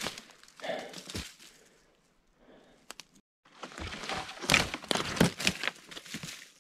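Rustling with a low knock in the first second, then footsteps crunching over dry sticks, needles and forest litter as a person walks away through brush, heaviest in the second half.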